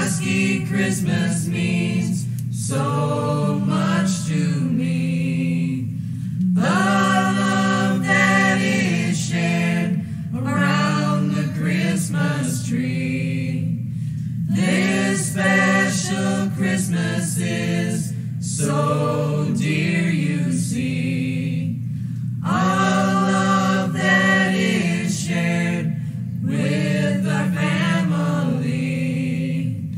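A choir singing in phrases of about four seconds with short breaks between them, over a low sustained drone.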